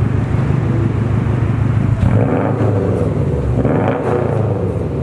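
2015 Subaru STI's turbocharged flat-four running through a Tomei ExtremeTi titanium single-exit exhaust: a loud, steady idle burble, with the throttle blipped twice in the second half so the note rises and falls.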